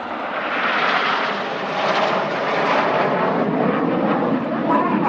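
Formation of BAE Hawk T1 jets passing with a steady jet-engine rush that drops in pitch as they go by.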